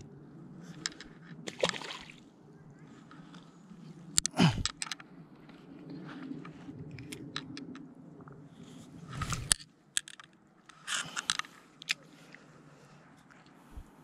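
Hand-handling sounds at the water's edge as a small bluegill is unhooked and let go: several sudden splashy, crunching knocks among scattered small clicks.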